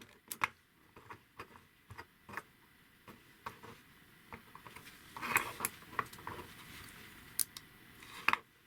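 Irregular light clicks and taps of hard 3D-printed plastic parts being handled on a small wind-up toy car, with a denser flurry of clicks about five seconds in.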